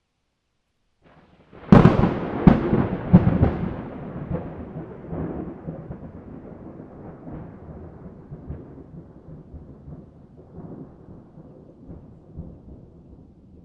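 A thunderclap: a sharp crack about a second and a half in, a few more cracks in quick succession, then a long rolling rumble that slowly fades.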